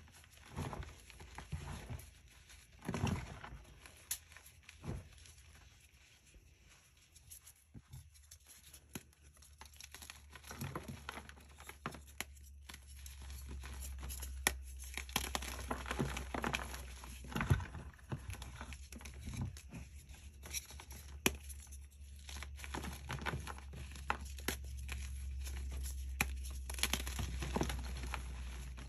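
Dyed gym chalk blocks being crushed and crumbled by hand: irregular dry crunches and crackles as chunks break apart and powder is rubbed between the fingers.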